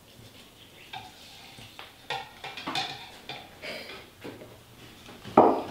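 Water poured from a glass measuring cup into a stainless steel stand-mixer bowl: splashing and light clinks of glass against metal, then a louder knock near the end.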